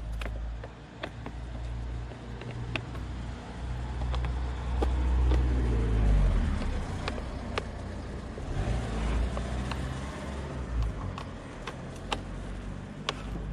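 Low rumble of a car passing on the road, swelling about halfway through and fading again. Small scattered clicks from a screwdriver working the screws of a plastic air filter housing sit over it.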